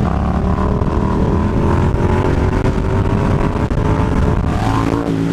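Yamaha MT-07's 689 cc parallel-twin engine running hard under throttle while riding. The engine note rises about four and a half seconds in, then falls to a lower pitch near the end.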